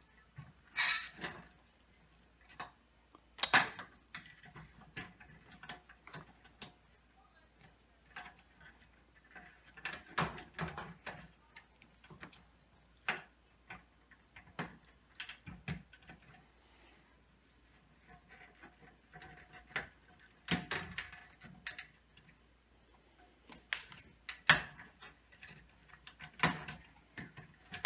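Irregular clicks, taps and knocks of hands working on a fluorescent light fixture's metal housing and wiring, pushing wires and parts into place.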